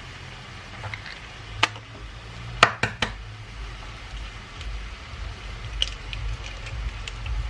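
Egg being cracked against the rim of a stainless steel mixing bowl and pulled open by hand to separate it. One click comes about a second and a half in, then three sharp cracks close together at about two and a half seconds, then faint ticks of shell, all over a low steady hum.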